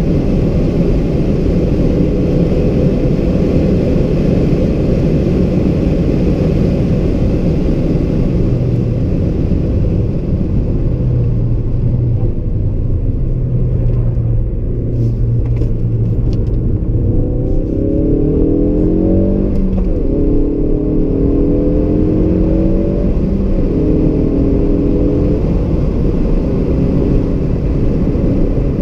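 Ford Focus RS (mk3) 2.3-litre turbocharged four-cylinder heard from inside the cabin at track speed, with loud engine, tyre and wind noise. Past the middle the engine pulls up in pitch through several gears, the note dropping at each upshift as the car accelerates.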